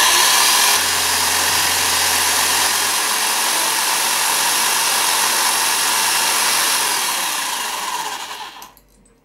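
Old Black & Decker electric drill running at speed, turning a 3.7 mm twist drill through a flexible drive shaft as it cuts a tapping hole into a phosphor bronze bush. It runs steadily, then is switched off about eight seconds in and winds down with a falling whine.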